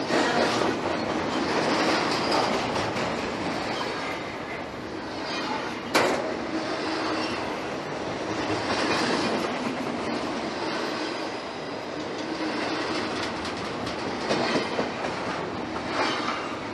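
Norfolk Southern freight train's cars rolling past: steady wheel-on-rail noise with clickety-clack clicks of wheels over the rail joints, and one sharp bang about six seconds in.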